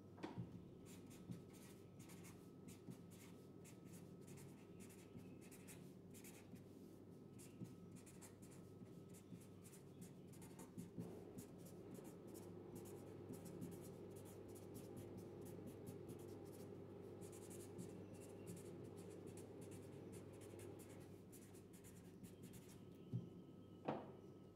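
Black felt-tip marker writing hand-lettered capitals on paper: faint runs of short pen strokes over a low steady room hum. The strokes stop a few seconds before the end, and two sharp clicks follow.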